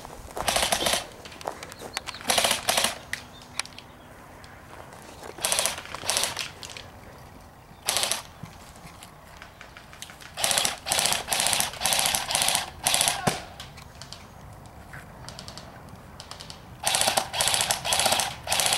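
Airsoft guns firing rapid full-auto bursts in several spells: short bursts in the first few seconds, a longer run of bursts in the middle, and another near the end.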